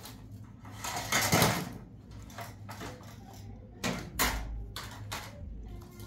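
A plate and a wire grill rack knocking and scraping against a metal tray as grilled food is turned over onto the plate: a longer scrape about a second in, then a few sharper knocks about four to five seconds in.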